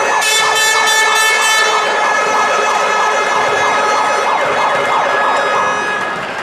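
A long, loud, steady horn blast with many overtones, held for about five seconds and fading out near the end, over a noisy crowd of voices.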